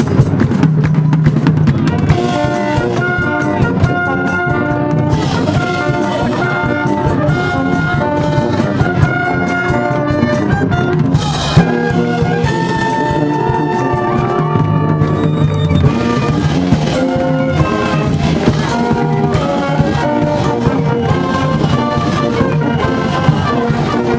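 A school brass band playing a cheering tune for the batting side: brass playing a melody of held notes over a drum beat, with no let-up.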